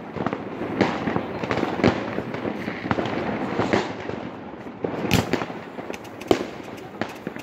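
New Year's Eve fireworks and firecrackers going off all around: irregular sharp bangs and cracks over a continuous crackle. The loudest bangs come about two, five and six seconds in.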